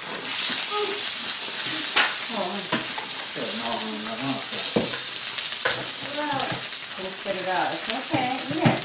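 Shrimp and sliced pork sizzling steadily on a hot gas grill, with a few sharp clicks from metal tongs turning the food.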